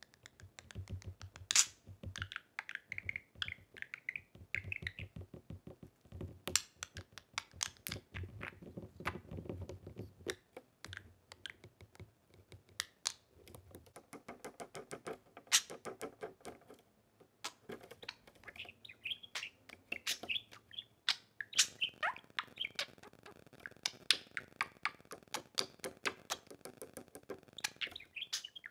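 Budgerigar chirping and warbling in short wavering phrases, among many sharp clicks and taps.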